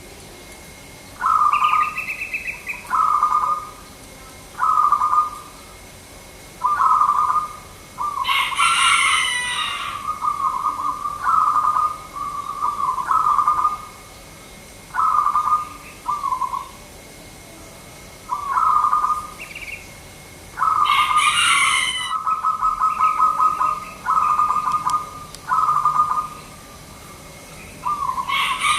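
Zebra dove (perkutut) cooing: short, rapid trilled phrases repeated every second or two. Three times they are joined by a louder, higher burst of sound.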